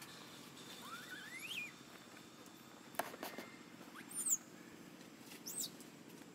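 Baby macaque giving a few faint, high-pitched cries that rise in pitch, each separate and short, over a steady low hum.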